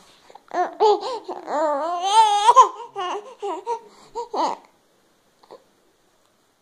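Baby babbling in a run of high-pitched sounds that rise and fall in pitch, stopping about four and a half seconds in.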